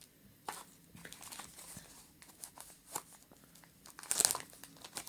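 Plastic accessory packaging crinkling and crackling as it is handled and unwrapped, with a louder burst of crackling about four seconds in.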